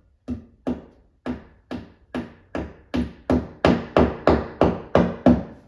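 A hammer tapping a drywall anchor into a drywall wall: about fifteen steady strikes, roughly two and a half a second, each with a short ring, starting light and getting harder toward the end.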